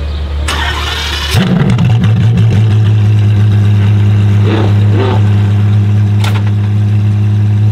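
Apollo IE's 6.3-litre naturally aspirated V12 being started: about a second of starter whirring, then the engine catches about a second and a half in and settles straight into a steady, even idle. A brief click comes near the end.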